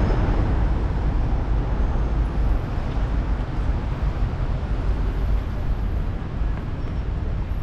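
Steady city traffic noise: a low rumble with an even hiss over it, a little louder in the first two and a half seconds.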